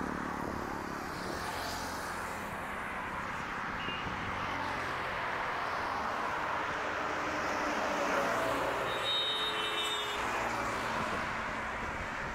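Steady road noise of a vehicle travelling at highway speed, tyre and wind rush heard from the vehicle itself. A brief faint high tone comes in about nine seconds in.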